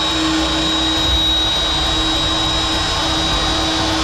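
Handheld electric power tool running at full speed with a steady high-pitched whine, held up against the cabin roof during roof preparation.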